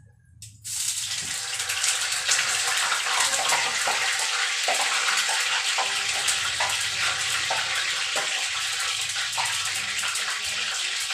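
Food frying in oil in a pan on a gas burner: a steady sizzling hiss that starts abruptly about a second in, with scattered crackling pops.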